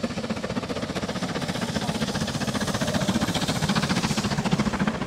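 Steam train crossing a viaduct: a steady rumble with a fast, even throbbing.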